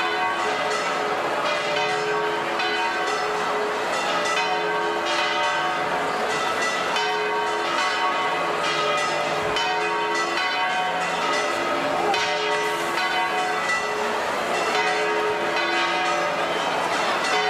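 Church bells ringing a continuous peal, with strike after strike overlapping and ringing on.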